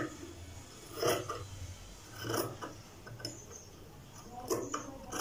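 A few brief rustles and light knocks, about one a second, of cotton fabric pieces being handled on a wooden sewing-machine table.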